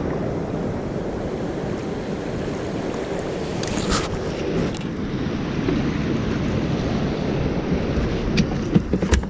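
Steady rush of turbulent river water in the boiling current below a dam's hydro outlets, mixed with wind on the microphone. A few sharp knocks sound near the end as a landed catfish is handled on the aluminium boat's deck.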